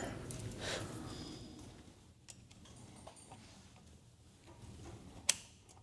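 A screwdriver working the shift shafts in a transmission's shift cover: faint ticks and scrapes of metal on metal, with one sharp metallic click about five seconds in.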